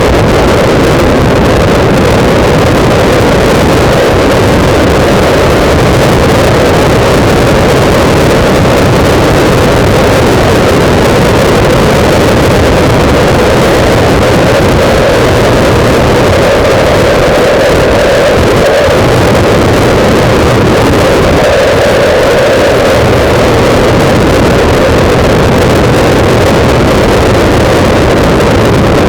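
Loud, steady wind buffeting on a motorcycle-mounted camera's microphone while the bike rides at speed, with the motorcycle's engine and road noise mixed underneath.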